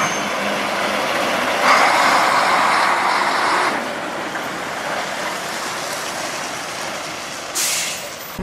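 Heavy machinery running: a steady rush of mechanical noise, louder for about two seconds soon after the start, with a short, sharp burst of noise near the end.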